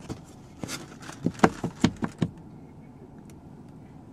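A handful of sharp taps and clicks in the first couple of seconds, then a quieter stretch with one faint click.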